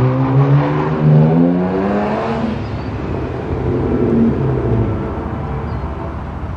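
A car's engine running as it drives past the crossing, its note rising as it speeds up about a second in, then fading after about five seconds.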